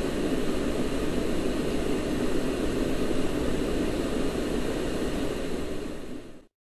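Steady hiss and static of the Apollo 11 lunar-surface radio downlink with no voice on it, fading and then cutting off suddenly about six and a half seconds in.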